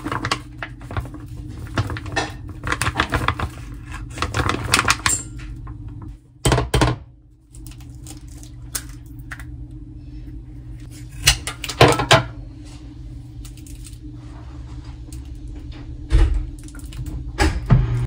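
Plastic pancake-mix packet crinkling as the powder pours into a glass mixing bowl, then a few separate knocks and thuds as an egg goes in and things are set down on the counter, over a steady low hum.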